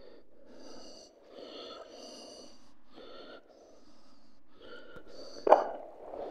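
A single loud gunshot about five and a half seconds in, a sharp crack that dies away quickly, over a low rushing background noise.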